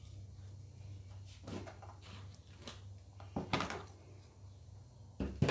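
A few short, soft knocks and clatters of a clear plastic food container and its clip-on lid being handled and set down on a wooden chopping board, over a low steady hum.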